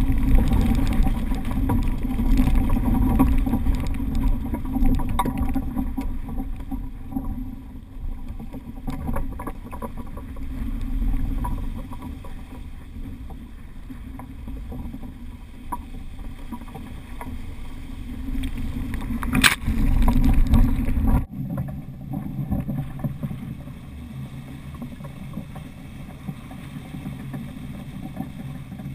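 Water rushing and splashing along the hull of a Laser II sailing dinghy heeled over at speed, with a heavy low rumble of wind on the microphone. A single sharp knock comes about two-thirds of the way through, and shortly after, the low rumble drops away suddenly, leaving a lighter rush of water.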